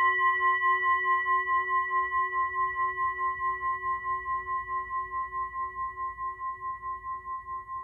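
A single bell-like metallic ringing tone slowly dying away, with an even wavering pulse several times a second.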